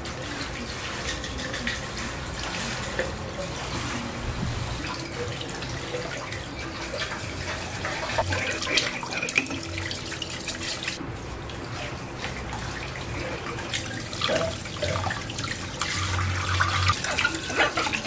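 Tap water running into a kitchen sink while something is washed under it, with splashing and scattered small knocks against the basin.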